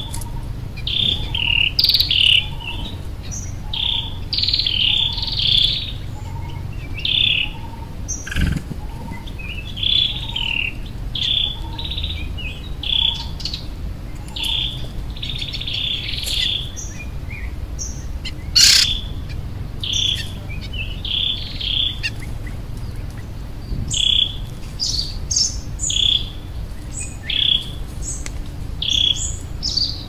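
Birds chirping and calling in short repeated phrases about once a second, with a fainter low note repeating at a similar pace for the first ten seconds or so, over a steady low background rumble.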